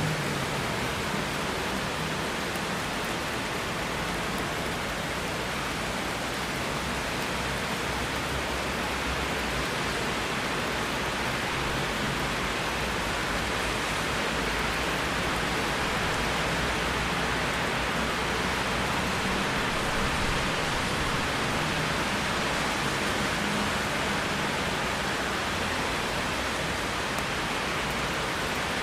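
Steady rain falling, an even hiss that holds at one level with no thunderclap.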